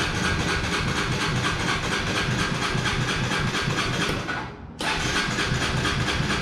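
Electric starter cranking a Honda CBR125R's single-cylinder engine, which turns over without firing: the fuel system has just been primed after the tank and fuel pump were cleaned of gunk. The cranking breaks off briefly about four and a half seconds in, then starts again.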